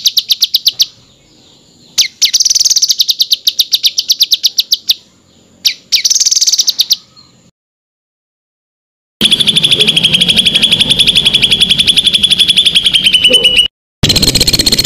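Songbird song of rapid 'tembakan' phrases: fast runs of sharp repeated notes, about a dozen a second, in several loud bursts broken by sudden silences.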